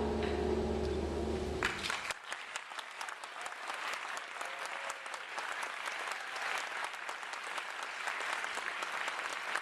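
A concert band's last held chord dies away, and about two seconds in the audience breaks into applause that keeps going.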